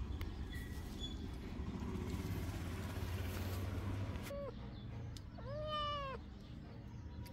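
Domestic cat meowing: a short call about four seconds in, then a longer meow that rises, holds and falls in pitch about a second later. A steady background noise fills the first half and drops away about four seconds in.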